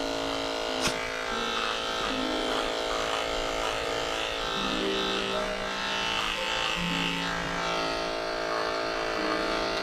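Cordless dog grooming clipper running steadily with an even electric hum as it shaves matted hair from a dog's face, with a brief click about a second in.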